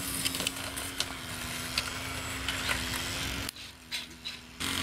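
Electric motor and propeller of a Durafly Auto-G RC model autogyro running with a steady, even hum, with scattered light clicks. The sound drops away sharply about three and a half seconds in, and the hum comes back about a second later.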